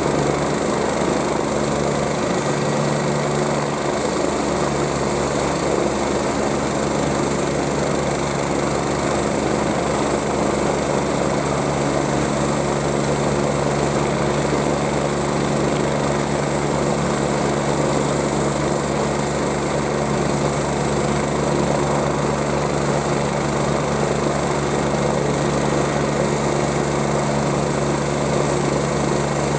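MBB BK117C-2 / EC-145 twin-turbine helicopter running steadily on the ground before take-off: a continuous engine and rotor sound with a high turbine whine over it.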